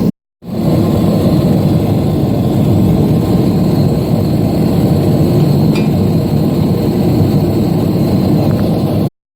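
Forge burning with a steady, loud, low roar. The sound cuts out dead for a moment just after the start and again near the end.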